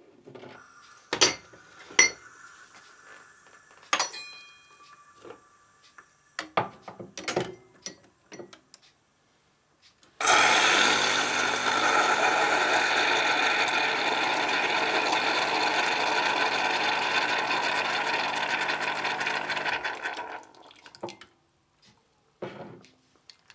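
Steam from a Saeco Syntia Focus espresso machine's steam wand hissing through an auto-cappuccinatore, starting abruptly about ten seconds in and stopping about ten seconds later. Before it come several clinks and taps on a glass cup, a few of them ringing briefly.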